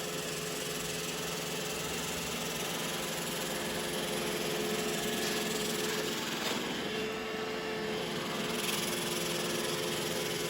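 Roomba robot vacuum running while it cleans: a steady motor whir with brush noise, its tone shifting slightly a little past the middle.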